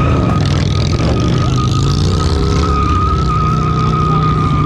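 Loud engine running steadily at high revs, with a steady high-pitched squeal held over it that stops just after the end.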